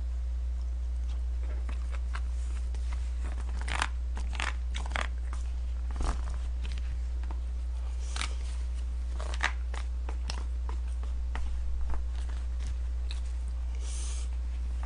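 Chewing and biting sounds of a person eating a convenience-store lunchbox meal, with scattered short clicks of chopsticks against the plastic tray. A steady low hum runs underneath.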